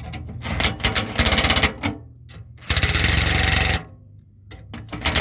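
Ratchet wrench clicking in quick bursts as a bolt is tightened, with about a second of fast continuous ratcheting near the middle.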